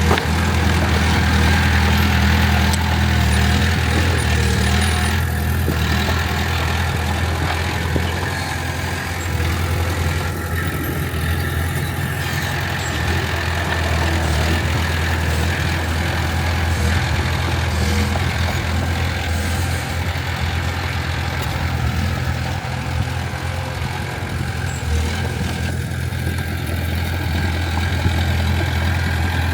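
Heavy diesel engine of earthmoving machinery running steadily with a deep, even hum.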